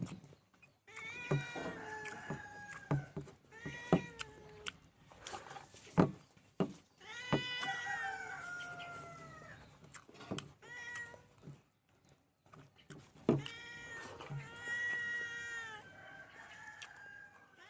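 A cat meowing repeatedly: a string of pitched calls, several of them drawn out for a second or more, with a few sharp clicks in between.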